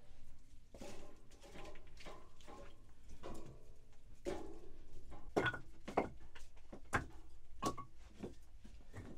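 Irregular knocks and clatters of things being handled and set down in a small room, a few with a short ring.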